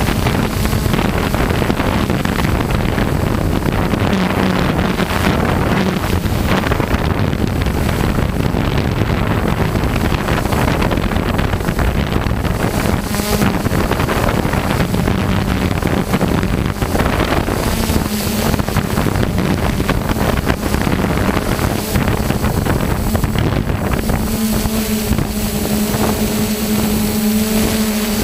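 Multirotor drone's propellers and motors buzzing steadily, picked up by its own onboard camera, with wind rushing over the microphone. The motor hum settles into a clearer, steadier pitch in the last few seconds.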